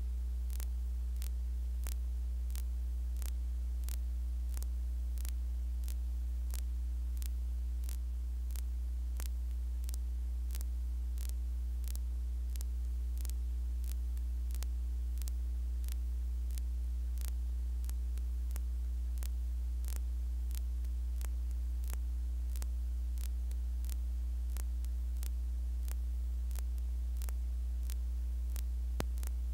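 Steady low electrical hum with evenly spaced ticks, a little under two a second, and no crowd or voices. This is the playback noise of a raw 16mm news film carrying no recorded sound.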